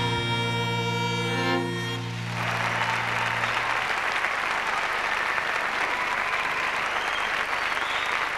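A Celtic folk band's final chord rings out and fades, its low notes lasting a little longer. The audience breaks into sustained applause about two seconds in.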